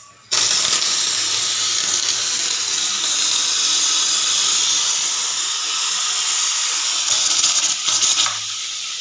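Pressure cooker whistle blowing: the weight lifts suddenly and a loud, steady jet of steam hisses out of the vent, the pressure being released, easing off somewhat near the end.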